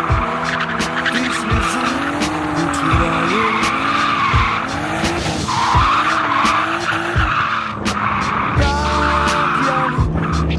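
Nissan Skyline R33 engine revving up and down, with tyres squealing and skidding, mixed with music that has a slow, steady beat.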